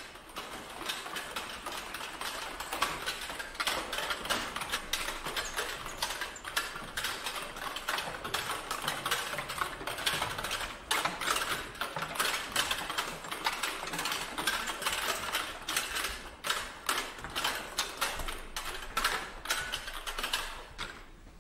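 A heap of plastic-and-metal chairs clattering and rattling against each other as they are moved along, a dense, continuous jumble of small knocks that stops abruptly near the end.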